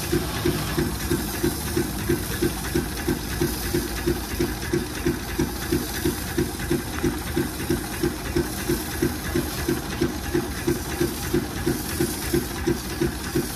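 High-pressure washer running: its pump beats steadily at about three pulses a second under the hiss of the water jet.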